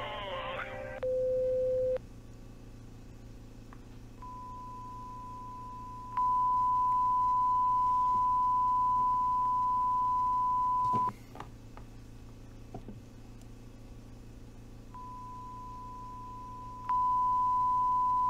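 Loud, steady electronic sine-wave beep tones from an analog-horror video soundtrack. A short lower beep sounds about a second in. Then a higher tone comes in softly, jumps louder a couple of seconds later, cuts off with a few clicks, and returns near the end, soft and then loud again.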